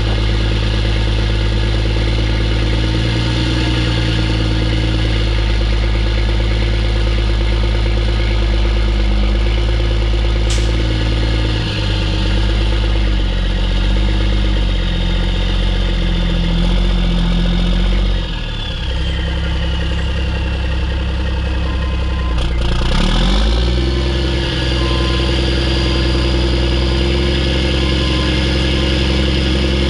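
Mack E7 inline-six diesel of a CH612 truck running under load, with a high turbo whistle over the engine note. The whistle slides down and the engine briefly drops off about 18 seconds in, as in a gear shift, and the engine picks up again a few seconds later with the whistle coming back.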